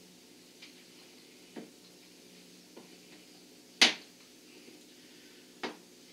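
Metal hose spigot being screwed by hand into a hole drilled in a plastic tote: five short clicks and knocks as it is turned, the loudest about two-thirds of the way through.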